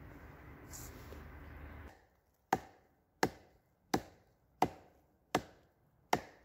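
A bow saw rasps through a log. About two seconds in it gives way to a wooden baton striking the back of a hatchet head set into an upright log round: six sharp knocks about 0.7 s apart, batoning the hatchet down to split the wood.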